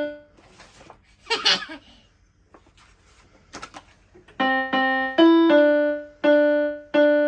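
Electronic keyboard on a piano voice played one note at a time: a note fading at the start, then after a gap with a short breathy hiss and a few soft clicks, a slow run of single notes begins about four seconds in, each ringing out before the next.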